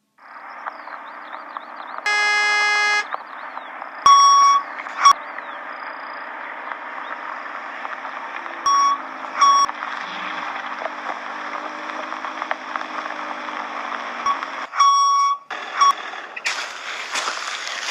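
A background hiss runs throughout. About two seconds in, a buzzer-like tone sounds for about a second. Short beeps then come in three pairs, and near the end a busier crackling, clicking noise sets in.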